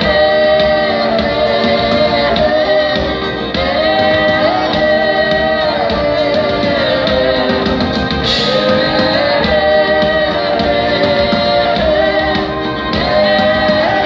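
Live band music: two women's voices singing long held notes in harmony over acoustic and electric guitars and drums.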